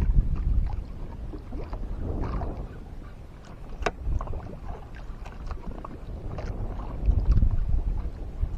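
Wind buffeting the microphone in gusts, with water sloshing and a scattering of small clicks and knocks, the sharpest about four seconds in.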